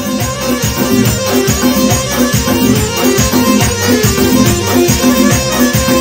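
Lively Gilaki folk dance music: melody instruments over a steady, fast drum beat.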